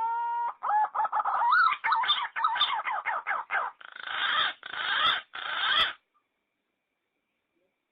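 Green pigeon (punai) song played as a lure call. A rising whistle levels off into a series of wavering whistled notes, then three harsh, rasping notes, and the song stops about six seconds in.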